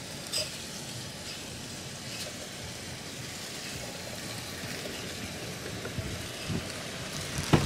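Steady hiss inside a parked car's cabin, with a few faint clicks.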